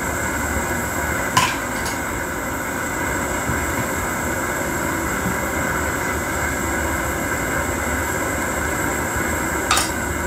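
Propane camp-stove burner running steadily on high heat under a skillet of simmering soup: a constant rushing noise. A sharp click sounds about a second and a half in and another near the end.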